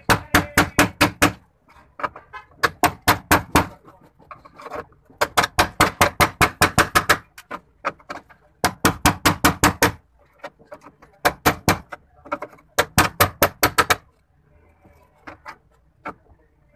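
Hand hammer striking the rusted sheet-steel floor of a Suzuki Khyber car body in quick bursts of several blows, about six a second, with short pauses between bursts, to break the old floor panel away. The blows stop near the end, leaving faint scraping.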